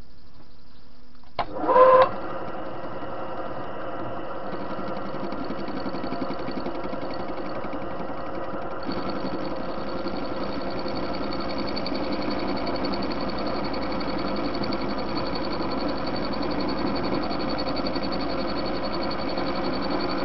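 Soviet TV-16 lathe running while its cutter faces a corroded steel washer: steady mechanical running noise, with a brief loud squeal about two seconds in as the tool bites, and a high whine that joins about nine seconds in.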